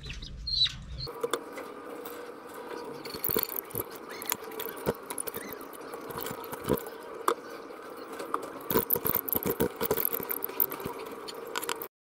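Hens scrambling and flapping on a gravel coop floor as a hand reaches in to grab them: irregular scuffles, scrapes and clicks over a steady hum.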